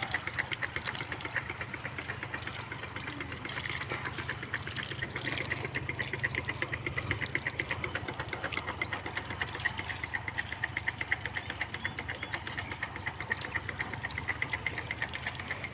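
Engine running steadily with a fast, even knocking beat over a low hum. A few short, high, rising chirps sound over it in the first half.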